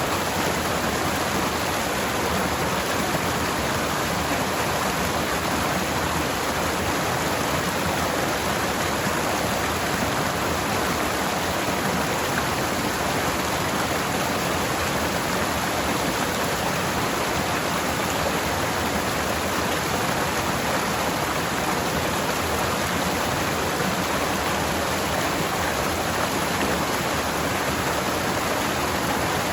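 Forest stream flowing over rocks: a steady, unbroken rush of water.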